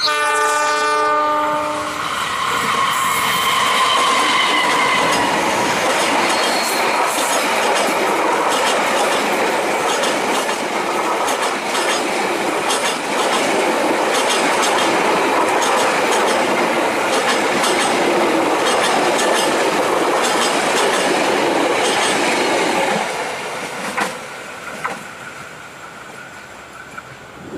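Locomotive horn sounding a chord of several notes for about two seconds, then a long passenger train passing close by with a steady clatter of wheels on the rails. The noise drops off about 23 seconds in as the last coach goes by, followed by a sharp knock.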